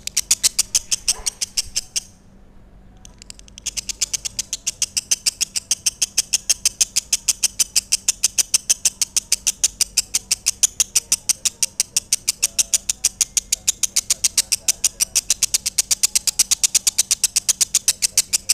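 Lovebird singing a long run of rapid, evenly spaced high chirps, about six a second: the drawn-out chattering 'ngekek' song. It breaks off for a moment about two seconds in, then keeps going.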